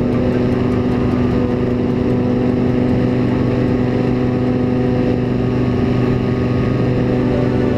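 Paramotor engine running steadily in flight, a constant drone that holds one pitch.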